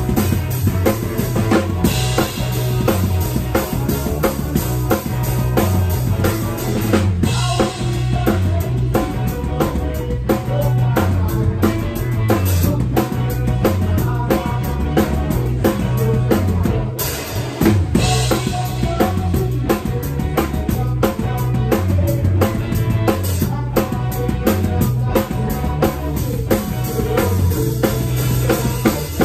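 Live band playing an instrumental passage, heard close to the drum kit: bass drum, snare and cymbals keep a steady beat over a stringed instrument's low line, with louder cymbal washes a few times.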